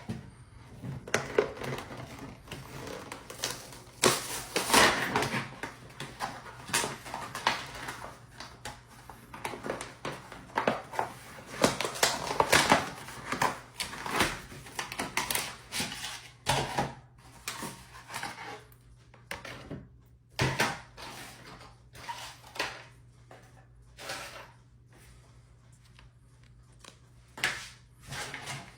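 Toy packaging being opened by hand: irregular crinkling, tearing and clicking of cardboard and plastic, busiest in the first two thirds and sparser toward the end.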